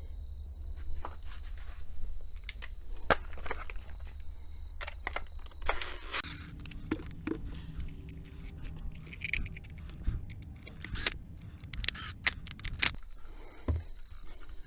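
Plastic parts of a garden tap timer being handled and fitted back together: scattered clicks, taps and scrapes.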